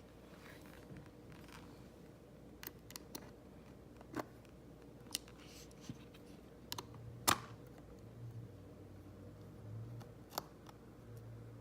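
Scattered sharp clicks and taps of a small screwdriver and tiny screws against an iPhone being taken apart, about eight in all, the loudest about seven seconds in. A faint low hum comes and goes in the second half.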